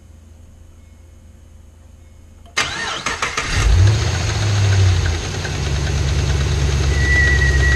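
Pontiac G8 GT's 6.0-litre L76 V8 being started: a short crank, then it catches and flares up, and settles into a steady idle about two seconds later. This is the engine the owner says has a failed AFM (DoD) lifter that ticks.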